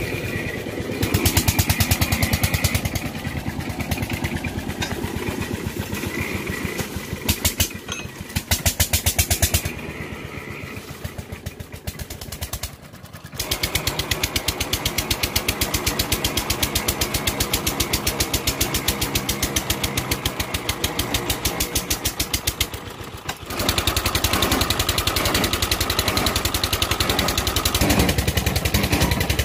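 Small engine of a tube-well boring rig running steadily with a fast, even beat, driving the pump that circulates water down the bore. The sound dips briefly twice.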